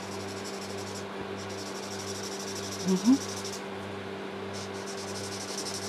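Felt-tip marker nib scratching rapidly back and forth on paper as a colour swatch is filled in, in two spells, over a steady low hum from an electric fan.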